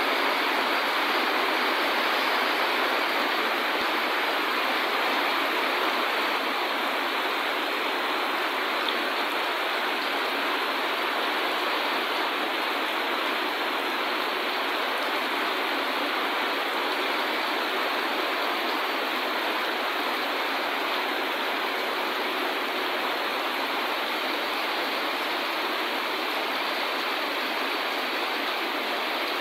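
Heavy typhoon rain pouring down steadily: an even, unbroken hiss with no letup.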